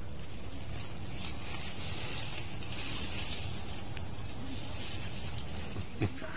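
Longan leaves and branches rustling over a steady outdoor hiss, with a few faint clicks and one sharper click about four seconds in, as the tree is worked with pruning shears.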